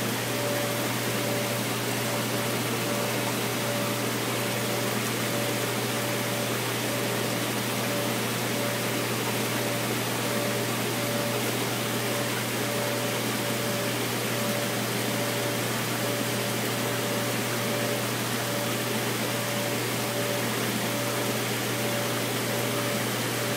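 Steady hum and hiss of aquarium equipment running, with a faint higher tone that pulses on and off at an even rhythm.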